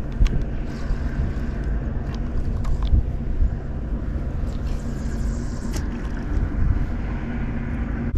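Steady low engine drone with a constant hum, with a few light clicks and knocks on top.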